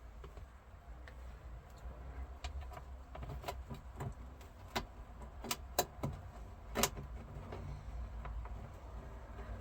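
Scattered clicks and knocks from a glove box liner and its screws being handled and fitted under a car dash, a few sharper knocks bunched about five to seven seconds in, over a low steady hum.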